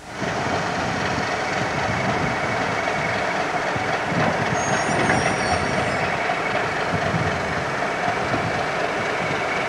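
Class 31 diesel locomotive, its English Electric 12SVT engine running steadily while shunting a rake of MGR coal hopper wagons. A faint high squeal comes in briefly about halfway through.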